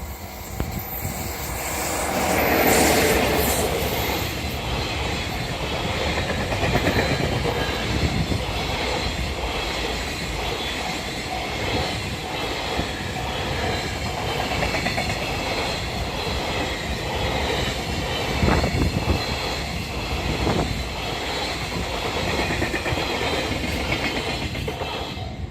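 EF66 electric locomotive hauling a long freight train past at speed. The locomotive goes by loudest about two to four seconds in, then the freight wagons run past with a steady clatter of wheels over rail joints and a few heavier thumps near the end.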